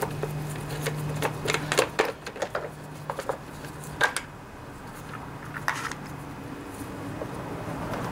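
Scattered clicks and light knocks of parts being handled as the air filter cover is taken off a small engine and the filter pulled out, over a steady low hum.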